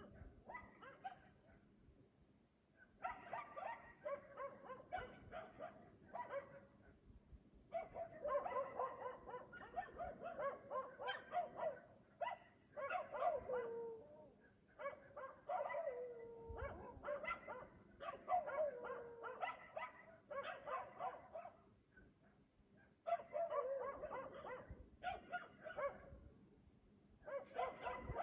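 A dog barking over and over in bouts of several seconds with short pauses between them, a few of the calls drawn out and sliding down in pitch.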